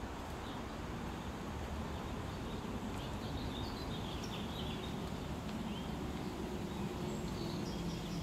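Outdoor garden ambience: a few birds chirping, mostly around the middle, over a steady background noise. A low steady hum comes in about halfway through.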